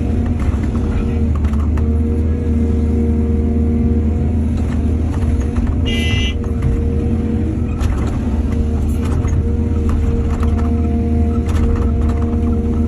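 Heavy diesel engine of earthmoving machinery running steadily under a deep low hum, with scattered light knocks and clicks. About six seconds in there is a brief high-pitched squeal.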